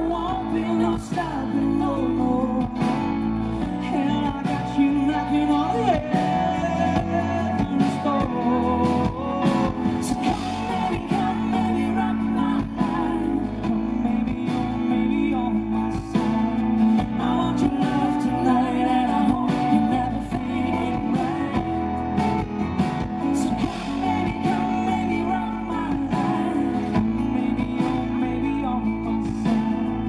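Live amplified pop performance: a man singing to his own strummed acoustic guitar, with a woman's voice joining in at the start.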